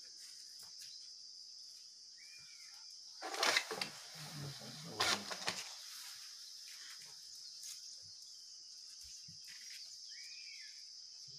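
Steady high-pitched drone of an insect chorus, with two short loud bursts of noise about three and a half and five seconds in, and a short chirping call twice.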